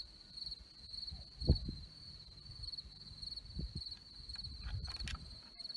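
Crickets chirping in a steady, pulsing high trill, with a low thump about a second and a half in and a few faint clicks near the end.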